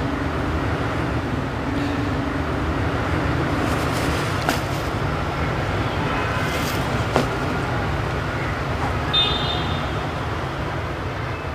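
Steady urban traffic noise, with two sharp clicks in the middle and a brief high-pitched sound near the end.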